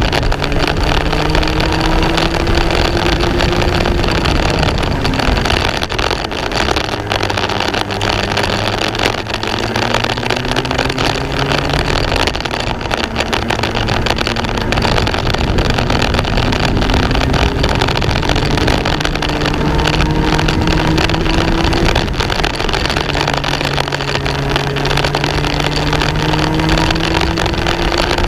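Racing kart engine heard onboard at full race pace. Its pitch climbs for several seconds as it accelerates, then drops when the driver lifts for a corner, about four times, over a steady rushing noise.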